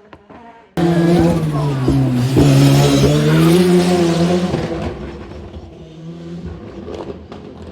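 Rally car engine at high revs, starting abruptly about a second in. Its pitch dips and then climbs again as the car accelerates past, and the sound fades as it draws away.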